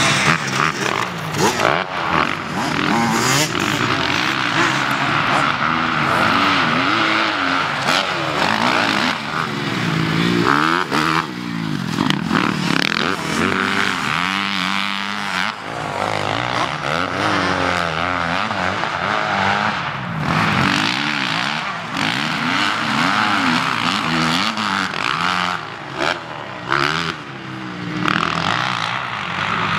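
Kawasaki KX250F single-cylinder four-stroke motocross engine ridden hard. Its pitch rises and falls over and over as the throttle is opened and closed through the track's turns and jumps.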